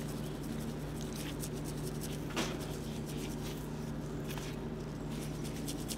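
Seasoning rub shaken from a shaker bottle onto raw tri-tip steaks and a wooden cutting board: faint, irregular light patter and clicks, with one slightly louder tap about two and a half seconds in, over a steady low hum.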